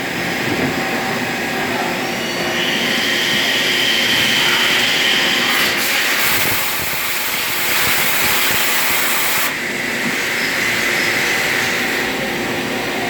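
CNC machine running: a steady mechanical drone with a high whine for a few seconds, then a hiss that starts sharply about six seconds in and cuts off about three and a half seconds later.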